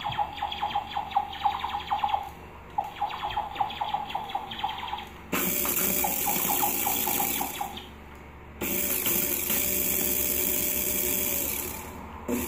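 Electronic sounds played through small phone speakers. First comes a rapid stuttering buzz in short runs. About five seconds in, loud hissing static noise with steady tones underneath cuts in, drops out briefly near eight seconds, and resumes until near the end.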